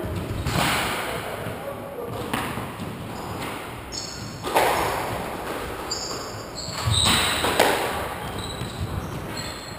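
Squash ball being struck and hitting the walls of an enclosed court, each impact echoing in the hall, with short squeaks of court shoes on the wooden floor between the hits.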